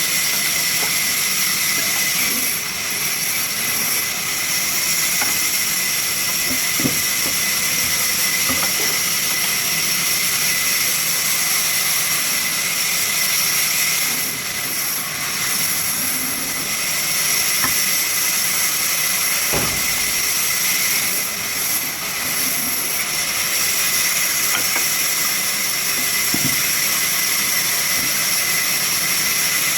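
Sawmill saw machine running with a steady high-pitched whine over hiss, with a few faint knocks and short dips in the noise.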